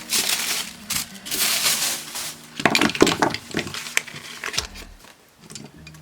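Packaging rustling and crinkling as art supplies are pulled out of their wrapping by hand, with light clicks and clinks of the items being handled. It comes in irregular bursts for the first few seconds and then dies down to quieter handling.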